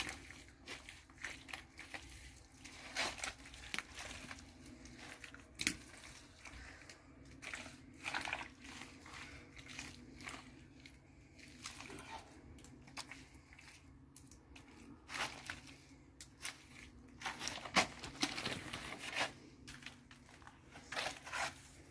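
A wet brush scrubbing and daubing against an adobe wall in irregular strokes, scratchy rustles of bristles on the damp clay surface.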